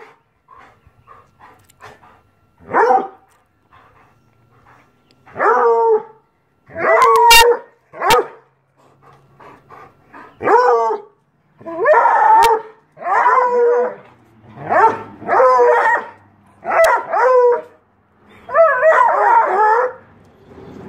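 Bluetick coonhound baying: about eleven drawn-out, pitched bay-barks, a few seconds apart at first and then coming close together in the second half.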